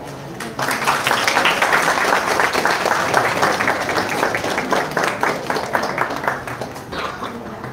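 Audience applauding. It starts suddenly about half a second in and thins out near the end.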